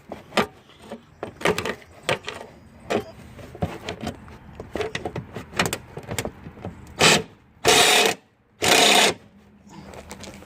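Ratchet wrench on a socket extension clicking irregularly as a 10 mm bolt is backed out. Near the end come three short, loud rasping bursts.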